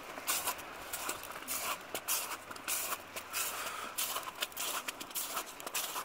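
Footsteps in fresh snow at a steady walking pace, about two steps a second.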